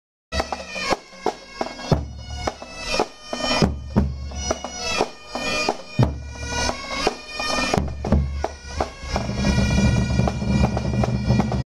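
Breton pipe band (bagad) playing: bagpipes with a steady drone over snare and bass drum strokes about two a second. It starts abruptly just after the opening, the drone grows louder in the last couple of seconds, and it cuts off suddenly at the end.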